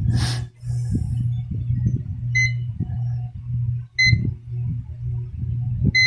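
Digital clamp meter (UNI-T UT202+) giving short high beeps as its test probes touch a transistor's pins in the diode-test range, three beeps, the last at the very end, the meter reading a junction drop of about 0.7 V. A steady low hum and light clicks and rustle of the probes being handled run underneath.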